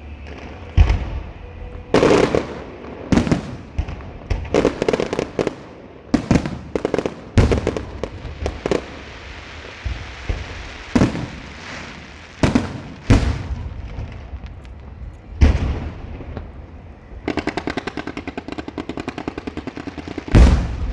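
Fireworks going off: about a dozen sharp, loud bangs at irregular intervals. Near the end comes a fast run of crackling pops, and then one last big bang.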